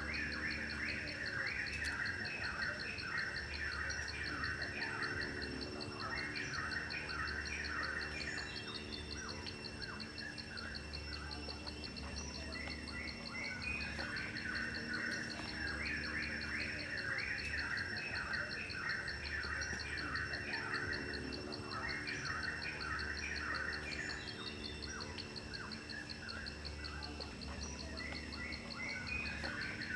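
Birds chirping in spells of quick, repeated calls over a continuous high, pulsing insect trill.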